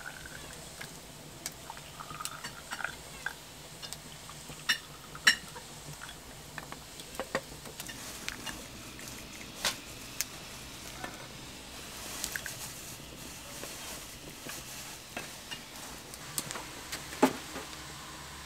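Turkish tea poured from a metal teapot into tulip-shaped tea glasses, with many sharp clinks and taps of the glasses on a stone ledge; the loudest knocks come about five seconds in and near the end.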